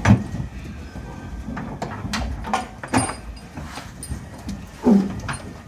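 Pig truck's tailgate banging shut and its chains clanking and knocking as it is fastened: a loud bang right at the start, then a run of sharper knocks and rattles. A short low grunt comes near the end.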